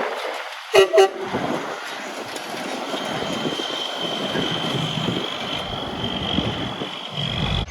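Two short blasts of a large vehicle's air horn over steady road traffic noise, followed by a steady high whine lasting several seconds.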